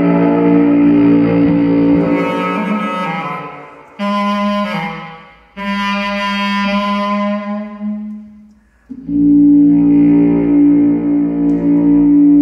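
Bass clarinet playing long held low notes, rich in overtones. Each swells and fades away, and a loud new held note comes in about nine seconds in.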